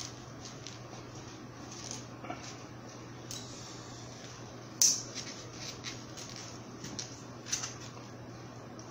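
Knife and fork cutting through a steak on a plate: irregular clicks and scrapes of the cutlery against the plate, the loudest one about five seconds in. A steady low hum runs underneath.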